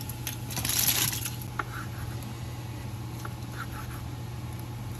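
Rustling and crinkling in the first second or so, then a steady low hum with a few light clicks.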